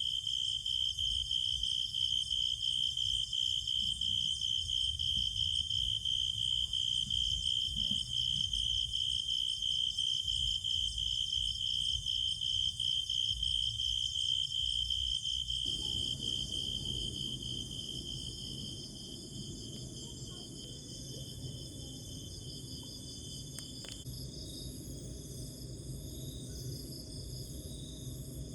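Chorus of crickets and other insects chirring steadily, led by one strong, high, pulsing trill, over a low rumble. The chorus eases somewhat past the halfway point, and the loudest trill stops about three-quarters of the way through, leaving fainter ones.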